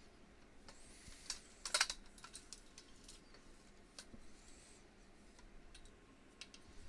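Scattered light clicks and taps, with a quick cluster of louder ones about two seconds in.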